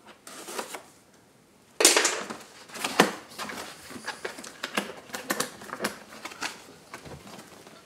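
A cardboard box being opened: a knife slitting the tape, a loud tearing rip about two seconds in, then clicks, rustling and scraping as the wrapping comes off and the lid flaps are pulled open, with a low thump near the end.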